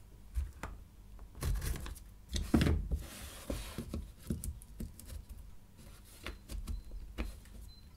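Plastic power-tool battery packs being picked up, moved and set down on a tabletop: scattered clicks and knocks, the loudest about two and a half seconds in, with a brief rubbing scrape just after three seconds.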